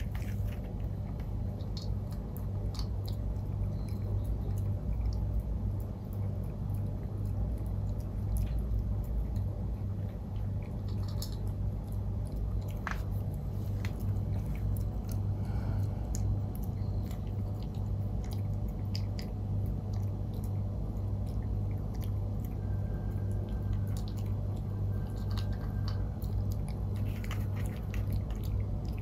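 A maltipoo puppy eating from a bowl: scattered small crunches and chewing clicks, over a steady low hum.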